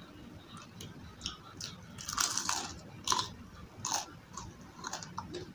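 Close-miked bite into crunchy battered fried food, with a loud cluster of crunches about two seconds in. It is then chewed with crisp single crunches about once a second.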